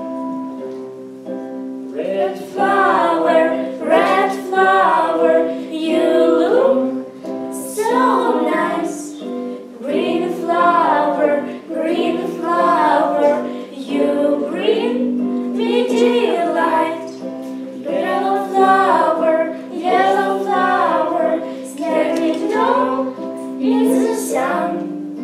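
A song: an instrumental accompaniment with held notes, then a singing voice coming in about two seconds in and carrying a melody in short phrases over it.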